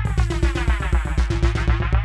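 Experimental electronic noise music: rapid synthesizer pulses over steady low tones, with many pitch sweeps rising and falling across one another.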